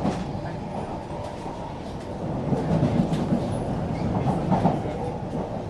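Inside a Singapore MRT train carriage running between stations: a steady rumble of wheels on the track that swells louder from about two and a half seconds in and eases off near the end.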